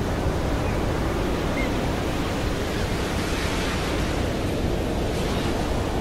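Ocean surf: waves breaking and washing ashore in a steady rushing wash, swelling a little about halfway through.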